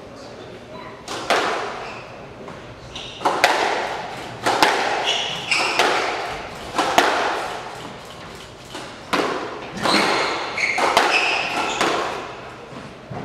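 Squash rally: the ball is struck by racquets and smacks the court walls, giving a sharp, echoing crack roughly once a second, about ten times, with short high squeaks between the hits.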